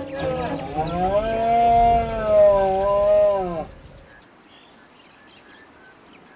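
Red deer stag roaring: one long bellow of about three and a half seconds, rising in pitch, holding, then sinking at the end.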